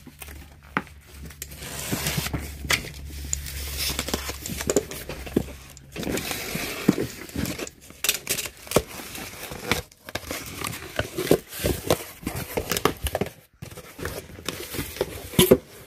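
Cardboard shipping box being opened: packing tape slit and torn, cardboard flaps scraped and rustled open, with many small knocks and clicks as the box is handled.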